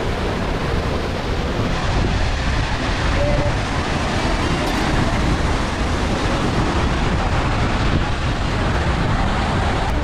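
Steady roar of a large waterfall's plunging water, with wind buffeting the microphone.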